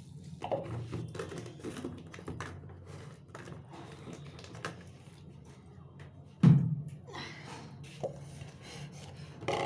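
Plastic bag and plastic storage jars handled on a kitchen counter: crinkling and light knocks and taps, with one loud thud about six and a half seconds in.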